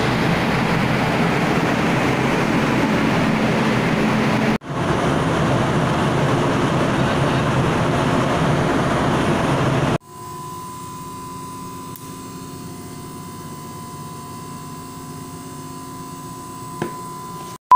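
Steady roar of a ship's machinery, with a brief break about four and a half seconds in. About ten seconds in it gives way to a quieter machinery hum with a steady high whine.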